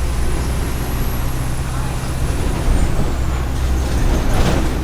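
Mercedes-Benz OF 1418 bus diesel engine running with a steady low hum and a faint high whistle that rises and then falls. About four and a half seconds in there is a short hiss of released air, like an air-brake release.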